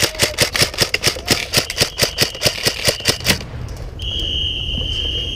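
Airsoft rifle firing a rapid string of semi-automatic shots, about six or seven a second, that stops after about three and a half seconds. About four seconds in, a single long, steady high-pitched tone begins, plausibly the signal that the game is over.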